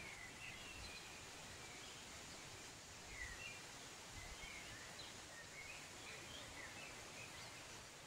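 Birds chirping, many short calls one after another, over a faint, steady rush of falling water.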